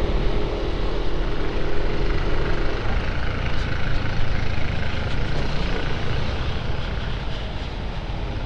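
Motor vehicle running with a steady low rumble. A pitched engine hum over it drops away about three seconds in.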